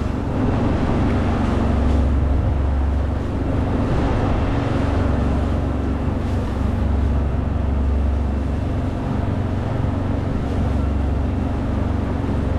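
Sailing yacht's 140 hp Volkswagen marine diesel running at maximum throttle, about 2,800 RPM, as a steady low drone.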